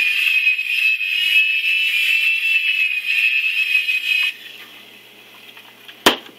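Small electric motors and rotors of a cheap two-channel toy RC helicopter whining steadily in flight, then cutting off suddenly about four seconds in; a sharp click near the end.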